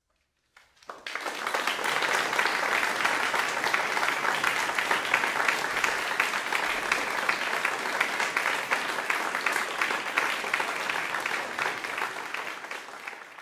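Audience applauding, breaking out suddenly about half a second in after silence and holding steady, with the clapping tailing off at the very end.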